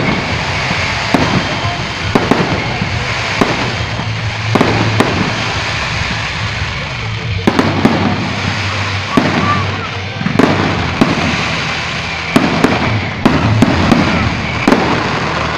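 Fireworks display: aerial shells bursting in a loose series of sharp bangs, roughly one every second or so with some close pairs, over a steady background noise.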